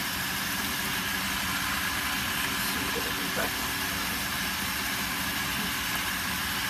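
Pool pump's electric motor running steadily, a constant hum with the hiss of water flow. Its suction-side valve is partly closed, so the pump works harder to pull suction.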